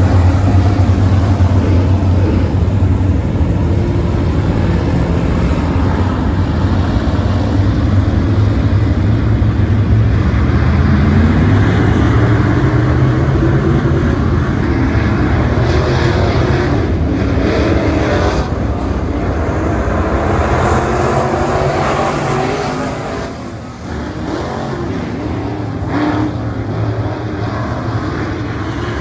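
A pack of dirt-track modified race cars running together, their V8 engines revving up in pitch as they accelerate. The sound drops away about three-quarters through as the pack moves off down the far side, then carries on at a lower level.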